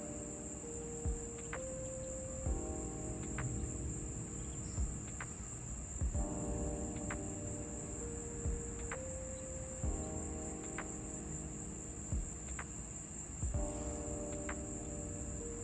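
Insects calling in a steady high-pitched drone, over background music with repeating chords and a regular beat.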